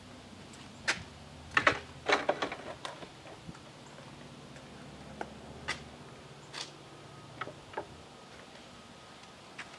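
Scattered clicks and knocks of metal parts and tools being handled, with a quick cluster of them about two seconds in, over a faint steady low hum.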